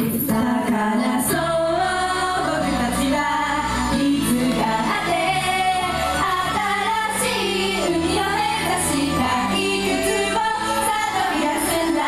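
Japanese idol pop song played through a hall sound system: a young girl's voice singing the melody over a backing track with steady bass notes and regular cymbal hits.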